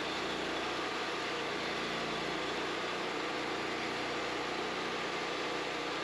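Wood-Mizer LT40 portable bandsaw mill's engine running steadily.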